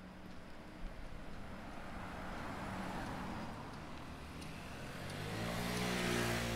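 Cars passing on a street. One goes by close near the end, its tyre noise and engine hum swelling to a peak; a fainter swell of passing traffic comes about three seconds in.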